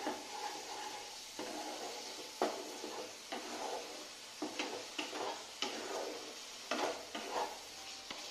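Wooden spatula stirring and scraping a thick tomato-onion masala around a black kadai, in a series of irregular scrapes over a steady sizzle as the masala fries down in oil.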